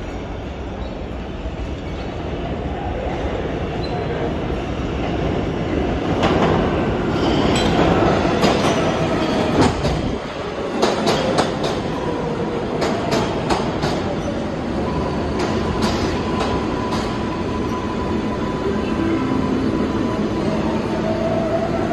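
An R188 subway train on the 7 line pulls into an underground station. Its running noise builds over the first several seconds, and its wheels clack over rail joints in the middle. Later the wheels squeal in a long, steady tone.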